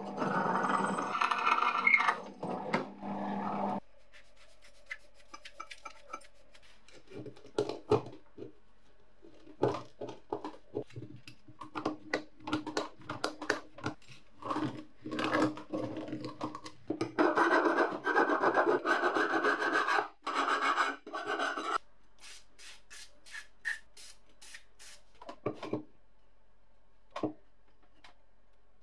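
A drill press bit cutting into the cast-iron soleplate of an antique clothes iron for the first few seconds. Then repeated rasping, rubbing strokes of hand work on the iron plate, densest in a run of several seconds past the middle, and a few faint clicks near the end as a thread tap is turned into a drilled hole.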